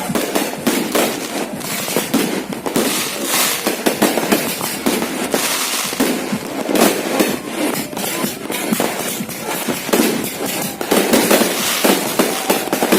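Fireworks going off in a continuous barrage of rapid bangs and crackling, with no pause.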